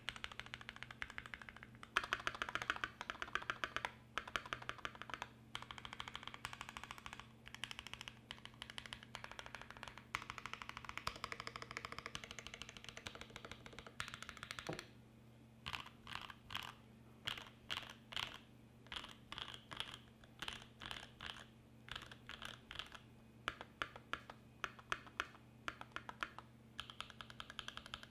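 Fast typing on a Primus75 mechanical keyboard with lubed Creamcicle switches, GMK keycaps and an aluminium plate: a rapid, continuous run of keystrokes, a brief pause about halfway, then typing in short bursts. A faint steady hum lies underneath.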